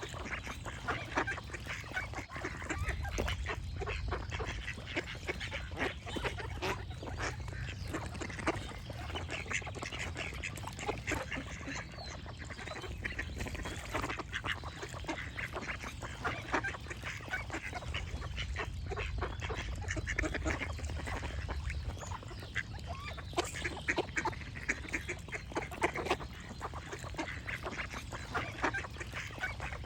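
A flock of ducks quacking steadily, many short calls overlapping, over a constant low rumble.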